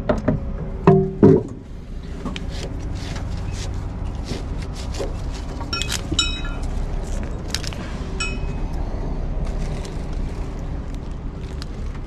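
Metal gear being handled: a few loud clanks about a second in, then scattered clicks and clinks, with two short ringing metallic notes, one about six seconds in and one about eight seconds in.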